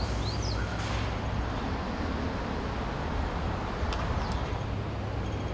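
City outdoor ambience: a steady low rumble of distant traffic, with a few short bird chirps near the start and again about four seconds in.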